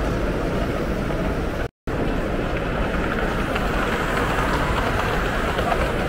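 Steady hubbub of a crowded exhibition hall, with a model train running on the layout somewhere within it. The sound cuts out for a split second about two seconds in.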